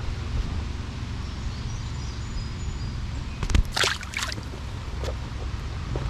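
Wind buffeting the microphone in a steady low rumble, with a brief louder burst of noise a little past halfway.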